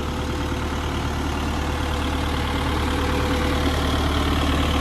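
Diesel engine of a 2006 Volvo BL71 backhoe loader idling steadily, growing slightly louder.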